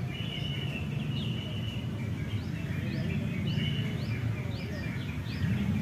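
Oriental magpie-robin singing: quick rising chirps repeated about twice a second, mixed with short held whistles, over a steady low background rumble.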